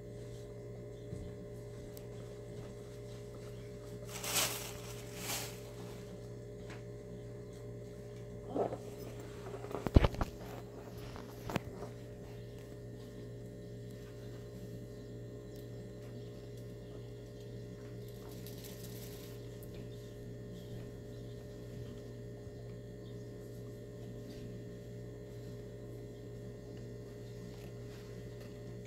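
Steady low electrical hum. Over it come a few brief rustles and a small cluster of knocks, the sharpest and loudest about ten seconds in.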